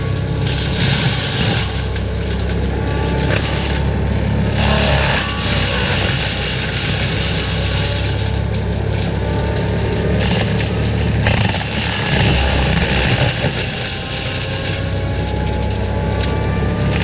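Forestry mulcher running hard with a heavy engine rumble, its pitch sliding up and down, with stretches of louder grinding noise as it works.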